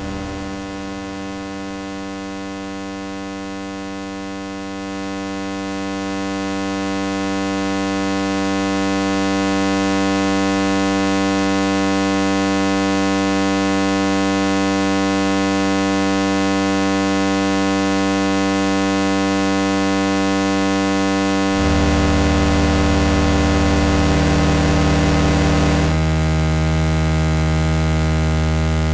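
Synthetic electronic buzzing drone, the soundtrack of an oscilloscope animation: many held tones together with hiss that swells up over the first several seconds. About three-quarters of the way through it jumps to a lower, louder buzz, and the tones shift again a few seconds later.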